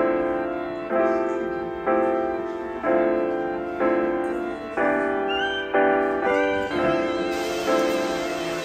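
Background music: chords struck about once a second, each fading before the next, with a short higher melody line about five seconds in.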